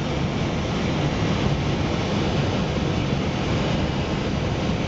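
Airbus A320 on final approach: steady engine and airflow noise inside the aircraft, heaviest in the low end.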